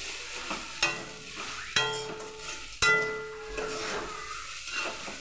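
Spatula stirring and tossing noodles in a kadai over sizzling oil, with three ringing clanks as it strikes the pan, about a second apart.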